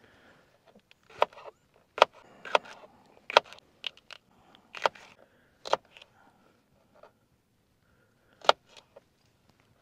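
Paring knife slicing mini sweet peppers on a plastic cutting board: sharp, irregular knocks as the blade hits the board, about ten of them, most in the first six seconds and one more near the end.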